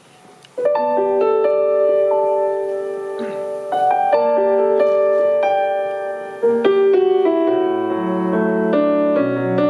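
Live piano opening a slow song: chords begin about half a second in and ring on, with lower bass notes joining past the middle.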